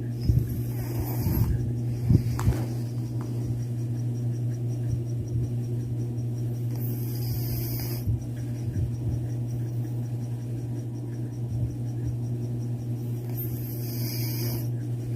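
Sleeping cat snoring: a hissy snoring breath about every six or seven seconds, three in all, over a steady low hum. A couple of soft bumps come about two seconds in.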